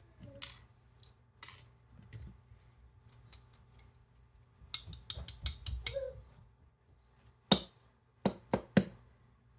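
Small metal lock parts being handled and taken apart, giving scattered light clicks and taps with a quick run of them midway. Three sharper, louder clicks come near the end.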